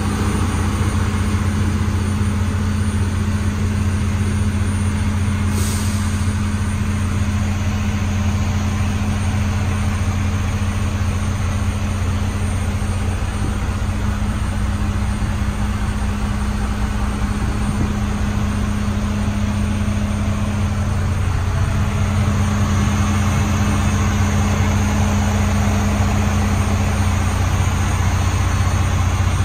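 Heavy-duty diesel engine of a Freightliner FLD120 truck tractor idling with a steady low hum, heard from inside the cab. It grows slightly louder in the last third.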